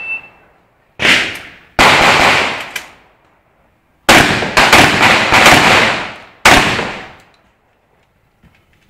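Fabarm semi-automatic shotgun firing: two blasts under a second apart, a pause, then a faster run of shots, each trailing off in a long echo. A few faint clicks near the end.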